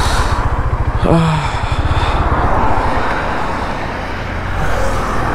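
A motorcycle engine idling with a steady low pulsing rumble, under road traffic noise.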